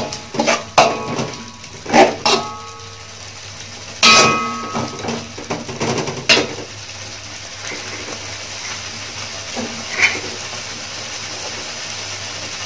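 Metal spatula clanking and scraping against an aluminium wok while stirring a thick sauce, some strikes ringing briefly. After about six and a half seconds the stirring stops, leaving a steady low hiss from the sauce cooking in the pan.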